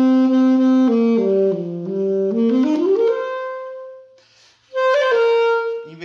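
Alto saxophone playing a short phrase: a held note, then notes stepping down into the low register and back up to a long held note. After a brief break, a second held note sounds near the end.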